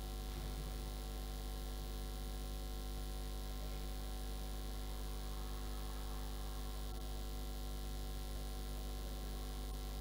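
Steady electrical mains hum: a low drone with a stack of higher overtones, unchanging throughout.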